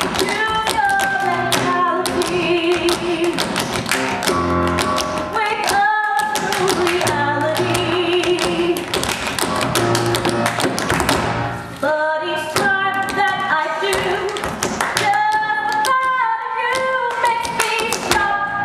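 Tap shoes clicking out quick, dense rhythms on a stage floor, from a group of tap dancers, over accompanying music.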